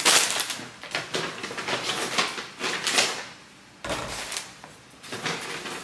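Plastic snack bags crinkling as they are handled and set down for about three seconds, then plastic water bottles set down on a stone countertop with a dull knock about four seconds in and a lighter one near the end.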